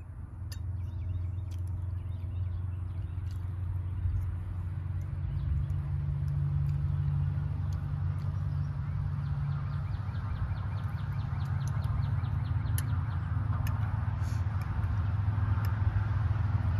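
Low, steady engine rumble of a motor vehicle, getting louder near the end, with light clicks of a metal fork against a plate.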